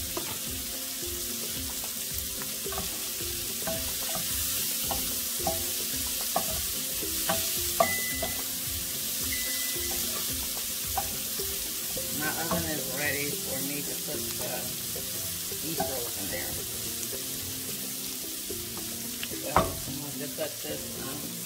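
Diced butternut squash, bell peppers and red onion sizzling steadily in a hot skillet while being stirred, with the spatula clicking and scraping against the pan. There is one sharper knock of the utensil on the pan near the end.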